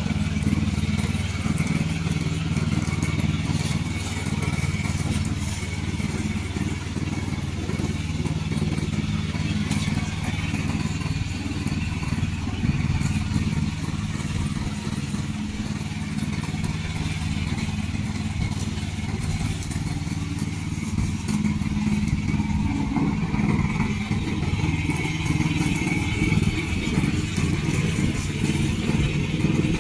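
Engine of a remote-control tracked lawn mower running steadily throughout, with a constant low drone and little change in speed.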